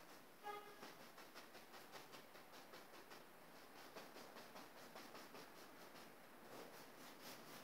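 Faint scratchy strokes of a paintbrush on stretched canvas, several a second, as paint is brushed on. A brief squeak about half a second in.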